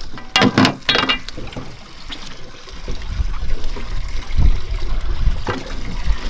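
Water trickling and splashing, with a few sharp knocks in the first second.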